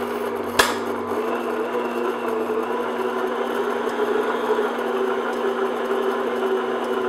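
Electric stand mixer running steadily on medium speed, its paddle beating butter, cream cheese and sugar in a glass bowl, with one sharp knock about half a second in.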